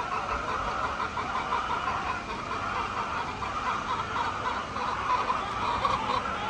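Many hens clucking together in a steady, dense chorus.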